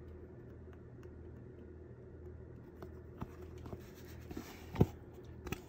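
Faint scratching of a needle and thread being drawn through a canvas journal spine as it is hand-stitched, with a few light clicks and one sharper tap a little before the end. A steady low hum sits underneath.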